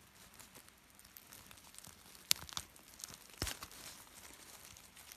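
Fingers digging through dry leaf litter and soil to loosen Balanophora stalks: faint rustling and crackling, with two sharp snaps about two and a half and three and a half seconds in.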